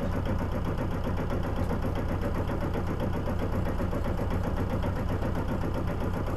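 Sailboat's inboard diesel engine running steadily under way, a constant low drone heard from inside the cabin.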